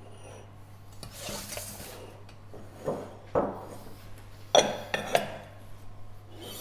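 Dishes and a metal pan being moved and set down on a wooden table: a short brushing scrape, then several knocks and clinks, the loudest about four and a half seconds in.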